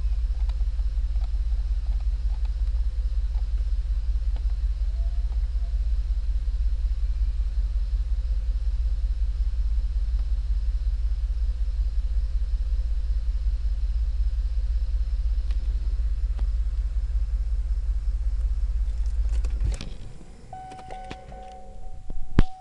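Cadillac STS engine idling with a low, steady rumble; the uploader puts its misfire down to worn piston rings. About three seconds before the end the rumble stops suddenly, followed by a steady tone and a sharp click.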